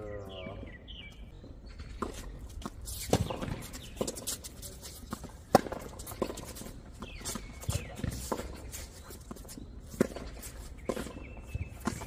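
Tennis balls struck by rackets and bouncing on a hard court during a doubles rally, with sharp pops at irregular intervals, the loudest about five and a half seconds in, along with players' shoes scuffing on the court surface.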